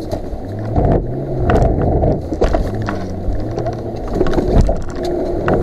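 Off-road vehicle engine running under load, its revs rising and falling as it drives over a rough, rutted mud track, with repeated knocks and clatter from the body and suspension.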